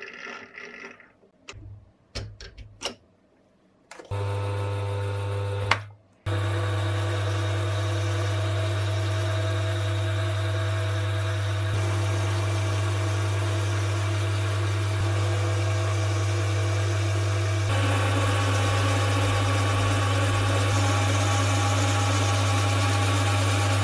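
A few clicks and knocks, then a small metal lathe starts about four seconds in and runs steadily with a strong hum. There is a brief break about six seconds in, and the lathe turns the wooden handle while it is sanded with mesh abrasive.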